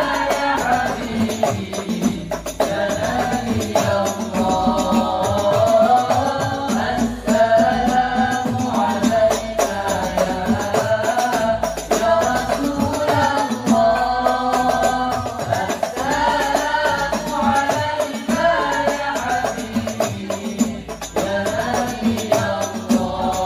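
Al Banjari hadrah: young male vocalists singing Islamic devotional song together into microphones, over fast, dense frame-drum (rebana) playing.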